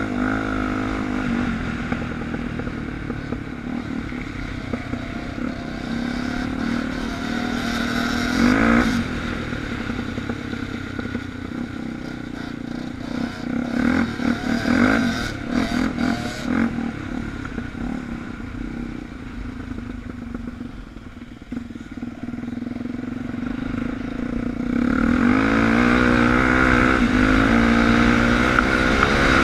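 Suzuki DR350 dirt bike's single-cylinder four-stroke engine riding under way from the bike itself, the revs rising and falling repeatedly through gear changes and throttle on and off. Near the end the revs climb and it gets louder.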